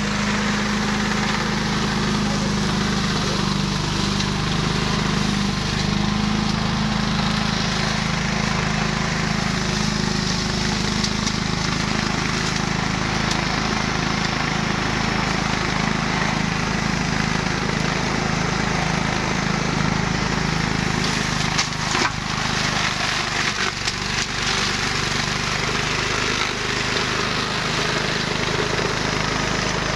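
Fourteen-horsepower Subaru petrol engine of a one-metre flail mower running steadily at work, its engine hum under the whirr and rushing of the spinning flail shaft. A few sharp knocks about two-thirds of the way through.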